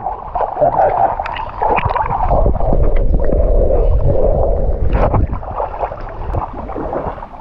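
Water sloshing and gurgling around a camera dipped below the surface, heard muffled and wavering with a low rumble.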